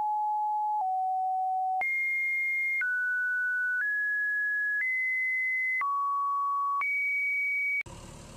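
A slow series of steady electronic beep tones, each held about a second and each at a different pitch, stepping up and down like a simple tune. A little before the end it switches abruptly to a short, noisy sound.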